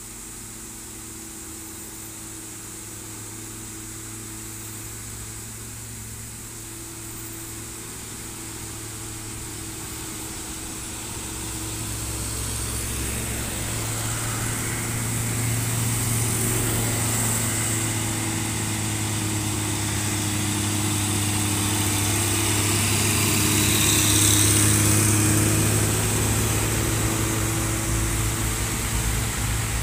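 Diesel engines of heavy dump trucks drawing near and passing close, growing steadily louder to a peak about three-quarters of the way through, with a rush of tyre and road noise as they go by.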